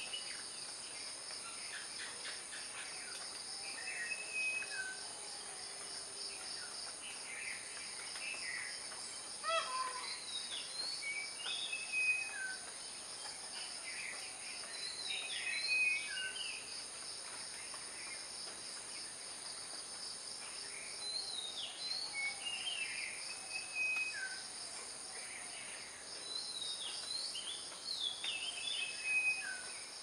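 A steady, high-pitched chorus of insects, with birds chirping and giving short falling whistles every few seconds.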